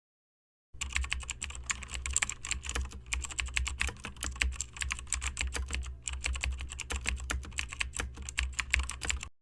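Rapid, irregular clicking like keys being typed, over a steady low hum. It starts abruptly about a second in and cuts off suddenly near the end.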